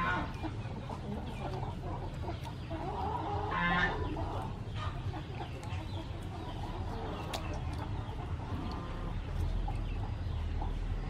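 Chickens clucking, with two louder calls, one at the start and one about four seconds in.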